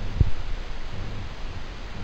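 Wind buffeting the microphone, a low rumbling noise, with one brief low thump shortly after the start.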